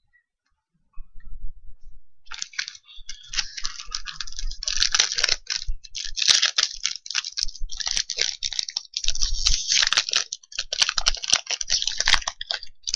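Foil trading-card booster pack wrapper being torn open and crinkled, an irregular crackling with small sharp clicks that starts about two seconds in.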